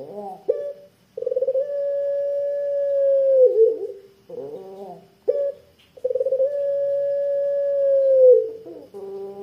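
Puter pelung collared dove calling: two long, thick-voiced "kwook" coos, each held for about two seconds and dropping in pitch at the end, with shorter coos before and between them.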